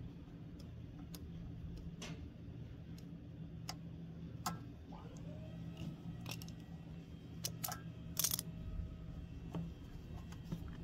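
Scattered light clicks and taps of hand tools and metal and plastic parts being handled while the carburetor fuel line and fuel tank of a small engine are refitted, with a louder short clatter about eight seconds in. A steady low hum runs underneath.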